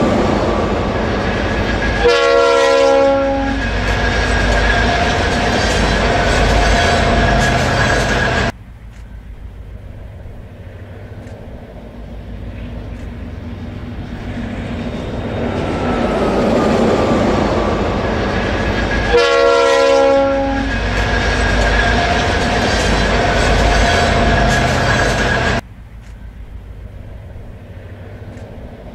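Freight train passing: a steady low rumble with wheel clatter, and a short blast of the diesel locomotive's air horn a couple of seconds in, sounded again partway through. The sound twice drops off abruptly to a quieter rumble, once near the middle and once near the end.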